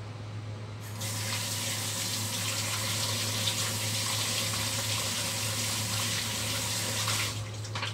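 Kitchen tap running into the sink as hands are rinsed under it. The water is turned on about a second in and stops near the end, over a low steady hum.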